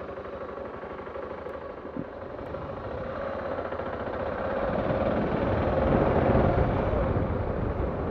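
A motor vehicle passing by over a steady engine hum. It grows louder from about three seconds in, peaks around six seconds, then eases off.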